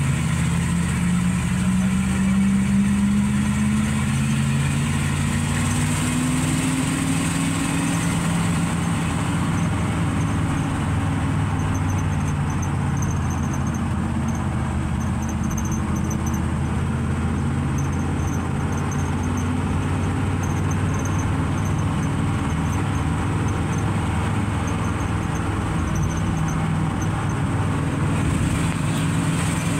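GMC 370 big-block V8 of a 1958 Chevrolet 3600 truck, heard from inside the cab while driving. It pulls the truck up to speed with its pitch rising over the first several seconds, then runs steadily at cruise.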